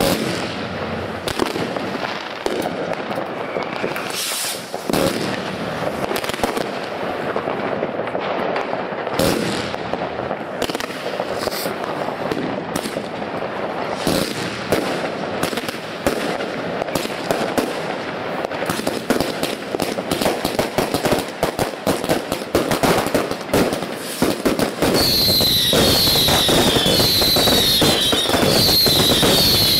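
Fireworks bursting and crackling without a break, a dense run of bangs that gets thicker past the middle. Near the end it grows louder and a falling whistle repeats about once a second over the bangs.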